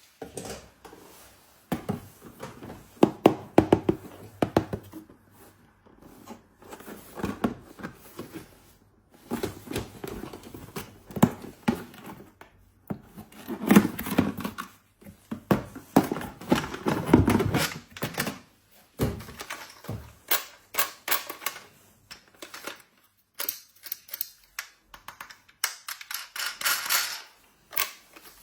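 Small plastic toys and their packaging being handled: irregular taps, clicks and knocks, with a spell of rustling near the end.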